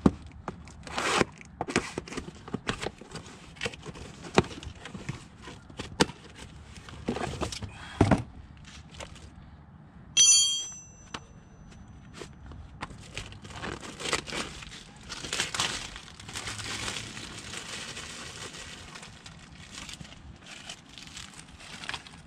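A new brake rotor being unpacked by hand: cardboard box scraped and knocked, a brief metallic ring about ten seconds in, then plastic wrapping crinkling as it is peeled off the rotor.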